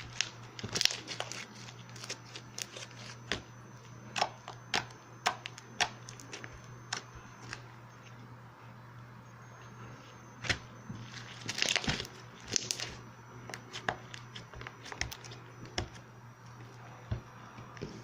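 Slime being squeezed and worked by hand, giving irregular crackling clicks and pops, with a busier cluster about two-thirds of the way through. A faint steady low hum runs underneath.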